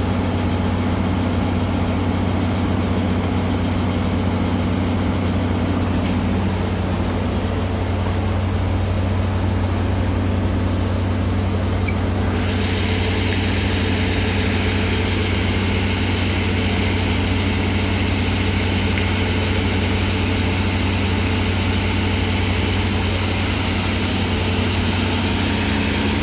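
DE10 diesel-hydraulic locomotive idling at a standstill, its V12 diesel engine giving a steady low drone. About halfway through, a steady hiss comes in over it.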